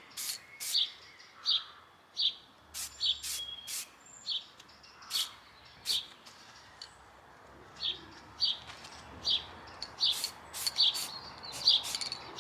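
A small bird chirping over and over: short, sharp chirps, one to three a second, with a faint hiss from an aerosol spray-paint can underneath.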